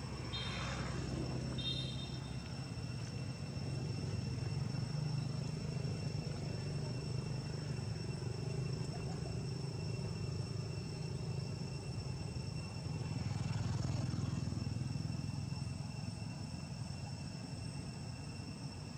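Outdoor ambience: a steady low hum under a continuous high insect drone, with two short high-pitched chirps within the first two seconds.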